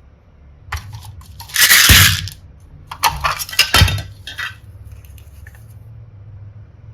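Small hard mini heart and seashell pieces clattering and clinking against each other as they are stirred and dropped. A dense rush of clatter comes about a second and a half in, then several sharp separate clicks a second later.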